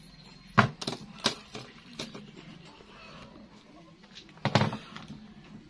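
Sharp clicks and knocks from fishing tackle being handled on a plastic table: a few single knocks in the first two seconds, then a short cluster of them near the end.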